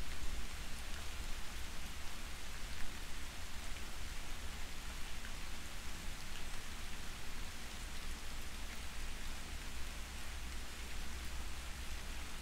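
Soft, steady rain falling: an even hiss with faint scattered drop ticks, over a low rumble.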